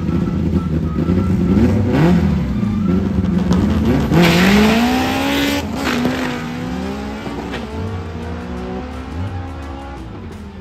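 1987 Honda CRX drag car launching off the start line: the engine blips about two seconds in, then about four seconds in goes to full throttle with a loud rasp, its pitch climbing hard. The pitch dips at two gear changes and the sound fades as the car runs away down the strip.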